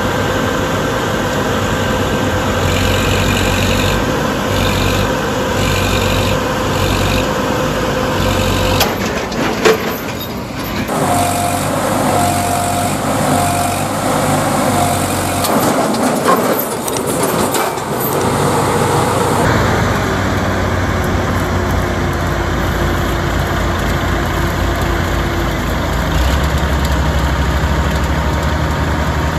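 Heavy diesel engines of a hydraulic mobile crane and a loaded truck running steadily, the sound shifting abruptly a few times. Partway through there is a run of four or five short beeps, about one a second.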